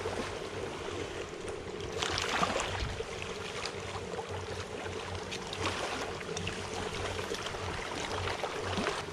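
Lakeside water noise under the steady low drone of a motorboat engine out on the lake, with a brief louder burst of noise about two seconds in.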